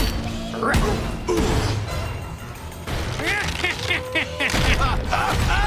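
Cartoon soundtrack: background music mixed with crashing and thudding sound effects and short, wordless cartoon vocal noises.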